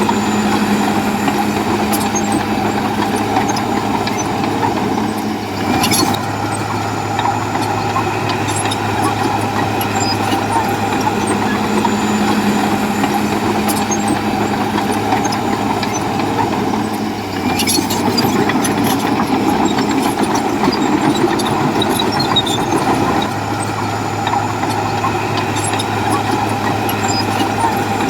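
Bulldozer's diesel engine running steadily, with a brief metallic clatter about six seconds in and again about eighteen seconds in. After the second clatter the engine note drops for a few seconds, then comes back.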